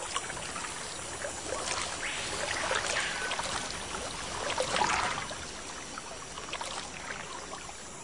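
Steady, hissing forest ambience, with a few faint rising and falling calls between about two and five seconds in.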